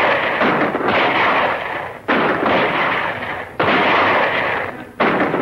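A volley of gunshots from a shootout: about five shots, roughly a second apart, each with a long echoing tail.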